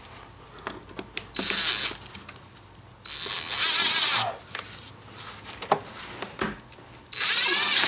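Subaru's plastic air intake duct and ribbed rubber boot rubbing and creaking as a gloved hand works them into line, in three scraping bursts: about a second and a half in, a longer one around three to four seconds, and one near the end, with small clicks between.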